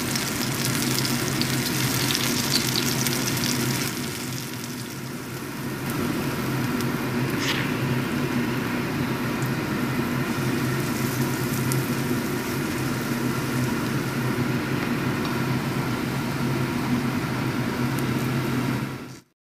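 Oil sizzling in a frying pan as battered banana fritters (maruya) fry, over a steady low hum. The sizzle dips for a couple of seconds about four seconds in, picks up again, and cuts off abruptly near the end.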